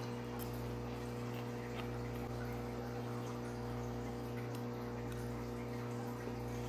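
Steady low hum of room tone, with a few faint light clicks of metal utensils while someone eats.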